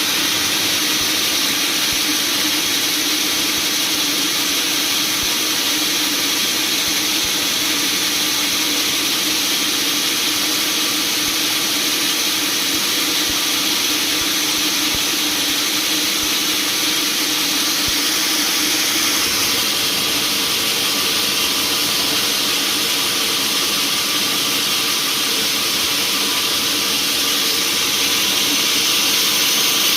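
Sawmill machinery running steadily: a constant mechanical drone with a strong high hiss that holds the same level throughout.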